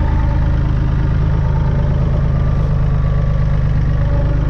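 Massey Ferguson 135 tractor engine running steadily, heard from the driver's seat.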